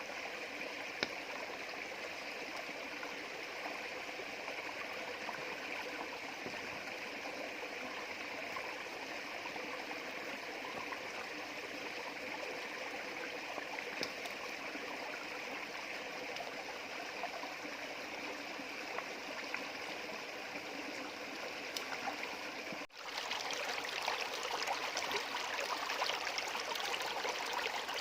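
A shallow stream flowing steadily over stones. About 23 s in the sound cuts out for an instant and comes back louder and splashier.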